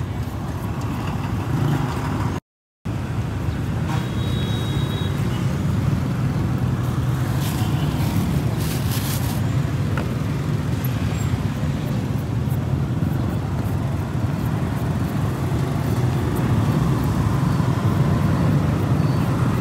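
Steady road traffic rumble from passing vehicles, with the sound cutting out completely for a moment about two and a half seconds in.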